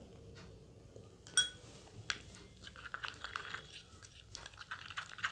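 Plastic spoon stirring a thick, wet paste in a small glass bowl: one ringing clink of a spoon against glass about a second and a half in, then a run of soft scraping and sticky clicking as the paste is mixed.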